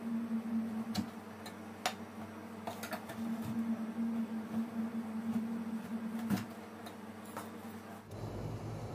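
Steel spatula scraping along a stainless-steel ice cream roll pan while rolling up frozen ice cream, with a handful of sharp metal-on-metal clicks over a steady hum. The hum drops to a lower pitch near the end.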